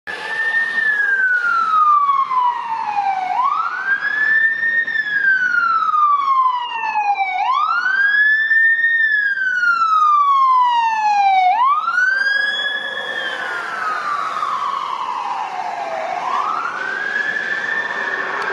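Ambulance siren on a wail, rising quickly and then falling slowly, about every four seconds. Partway through it grows fuller as the ambulance goes by, and its pitch sits slightly lower as it pulls away.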